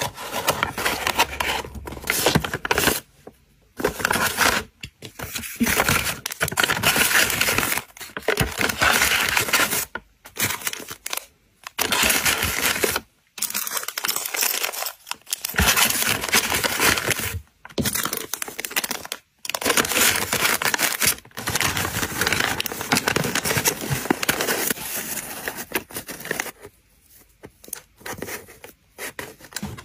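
Brown kraft paper and a kraft paper bag being folded, creased and handled, in stretches of crinkly paper rustling broken by short pauses.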